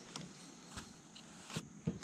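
Quiet with a few faint taps and knocks, the two strongest near the end: fishing rod and gear being handled in a kayak.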